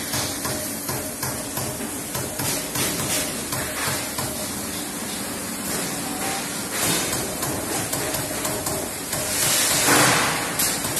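Trumpf Trumatic 500 CNC punching press punching sheet metal: a quick, uneven series of sharp punch strokes over a steady hiss, with a louder burst of hiss near the end.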